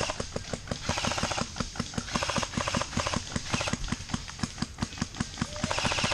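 Fast running footsteps, about five footfalls a second, with gear rattling and hissing noise over them.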